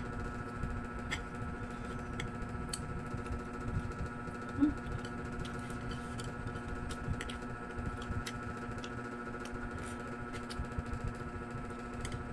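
Eating sounds: wooden chopsticks clicking and scraping on a plate of noodles, and chewing, heard as scattered small clicks over a steady electrical hum. One brief louder blip comes about four and a half seconds in.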